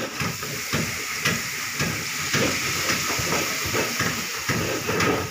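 Coconut milk poured into a hot wok of frying rendang spice paste, sizzling with a steady hiss.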